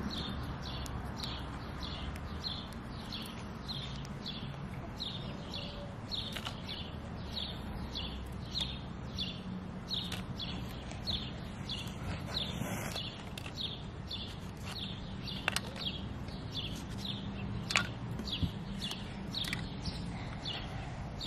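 A bird calling over and over, a short high falling chirp about twice a second, with a low steady rumble underneath.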